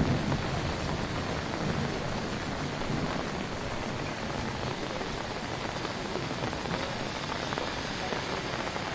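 Rain falling steadily, an even hiss with no break and no distinct thunderclap.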